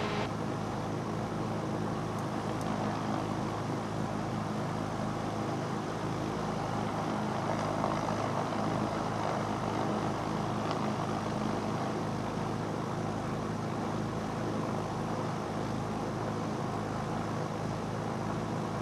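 Cessna 310's twin piston engines running steadily at low power on the ground, heard from inside the cabin, swelling slightly about halfway through.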